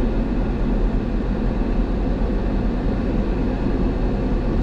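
Steady low rumble of a Ford Ranger pickup on the move, heard inside its cabin: engine and road noise.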